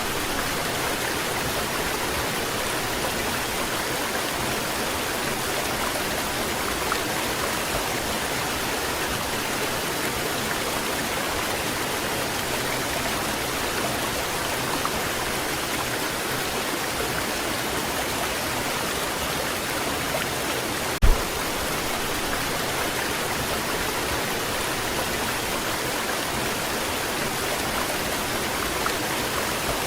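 Waterfall: water pouring and splashing in a steady, unbroken rush. A single short low thump about two-thirds of the way through.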